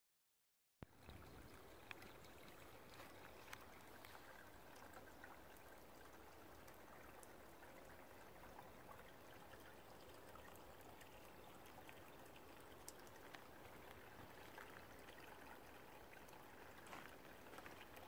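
Faint trickling of a shallow woodland stream, starting about a second in, with a few faint clicks.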